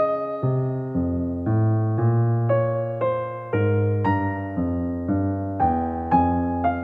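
Background music: an electric piano playing a gentle melody, a new note about every half second.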